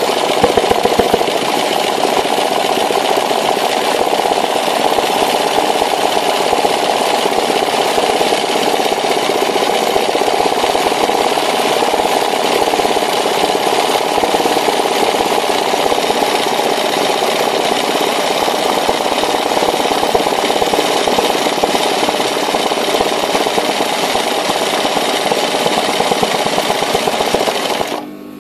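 Sewing machine running fast and steadily for free-motion embroidery, its needle hammering out a dense satin-stitch fill; it stops abruptly just before the end.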